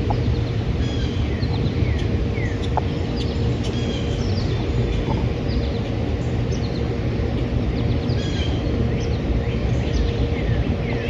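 Songbirds chirping and calling again and again, short quick notes and falling calls, over a steady low rumble.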